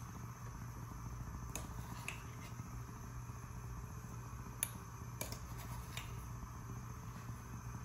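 A few light clicks of a steel spoon against a pan as ground spice powder is tipped into water heating on a gas stove, the sharpest just past halfway, over a faint steady low hum.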